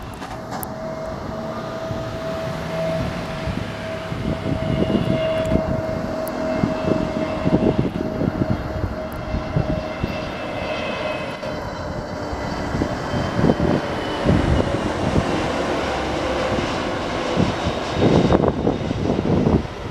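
Citilink Airbus A320-family jet on final approach passing low: a steady engine whine that slowly falls in pitch over a deep rumble, growing gradually louder. Wind gusts buffet the microphone, most strongly near the end.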